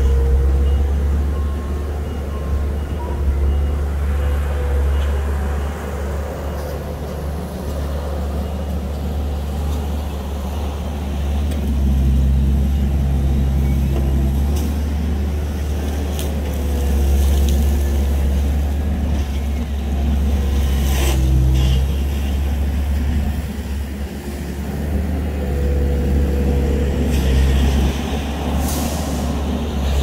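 Diesel engine of small earthmoving machinery running steadily under load, its pitch and loudness shifting now and then, with a few sharp knocks.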